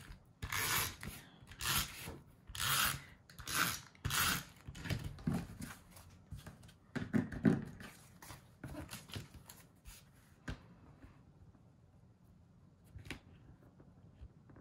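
Adhesive tape runner drawn across the backs of cardstock mats: four quick scraping strokes about a second apart. After that come softer rustles and light taps as the paper mats are handled and pressed down, and it is mostly quiet near the end.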